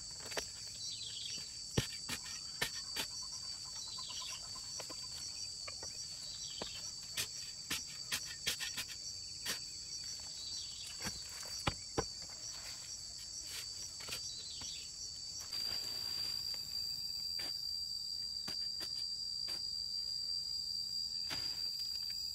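Shovel blade chopping and scraping into compact dry soil: a string of sharp, irregular strikes and scrapes that stops about two-thirds of the way through. A steady high-pitched insect chorus runs underneath.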